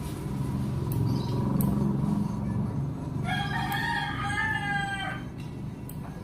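A rooster crowing once, a drawn-out call of about two seconds past the middle, over a steady low hum.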